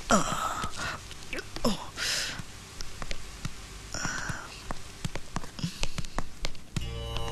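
A shaken man's groans and breathy gasps, with scattered footstep clicks on a hard floor. Music starts near the end.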